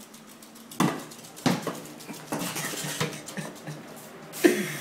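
Hollow plastic wiffle ball bat knocking and clattering against the floor and walls as a dog carries it about, with four or so sharp knocks among smaller bumps.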